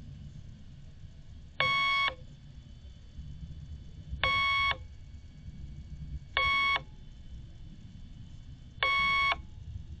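Four identical electronic beeps, each about half a second long, spaced unevenly a few seconds apart, over a low steady rumble.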